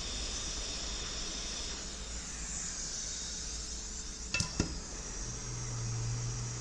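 Steady hiss of air at a board-repair bench, with two quick metallic clinks about four and a half seconds in, as of a metal tool set down. Near the end a steady low hum starts.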